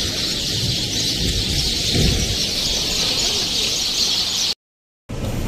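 A dense flock of birds chattering in roadside trees, a steady mass of chirps, with a low rumble about two seconds in and a short break of silence near the end.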